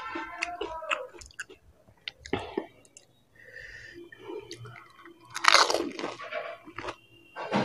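Close-miked chewing and crunching of pani puri: the crisp puri shells crackle between the teeth amid wet mouth sounds, with a louder, longer burst about five and a half seconds in.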